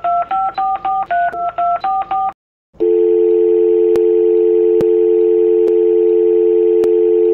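Phone keypad dialing: a quick run of touch-tone key beeps, about four a second, each a different two-note pitch. After a brief gap comes a steady, unbroken dial tone.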